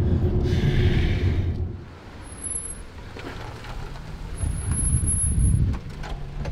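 Compact van driving: a low engine and road rumble inside the cab, then the van's engine and tyres heard from outside as it drives past, louder again for about the last two seconds before stopping abruptly.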